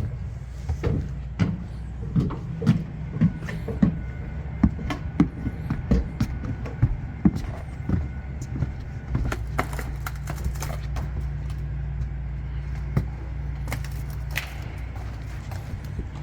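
Irregular knocks, taps and clicks, about two a second for the first eight or nine seconds and sparser after, over a steady low hum.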